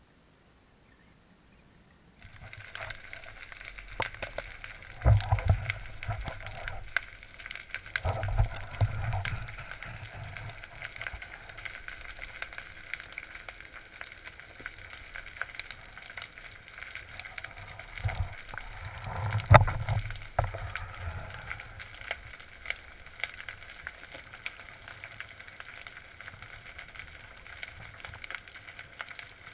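Muffled underwater water noise picked up by a camera in a waterproof housing beneath the surface, starting suddenly about two seconds in, with dull knocks and thumps against the housing, the loudest about five, eight and twenty seconds in.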